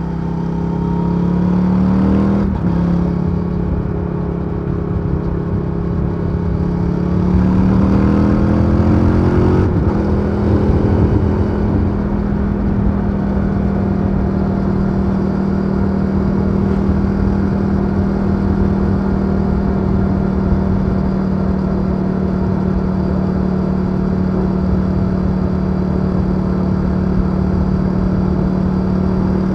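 Stock-exhaust V-twin of a 2023 Indian FTR Sport under acceleration: the revs climb, drop with an upshift about two and a half seconds in, climb again, drop with another upshift at about ten seconds, then hold steady as the bike cruises.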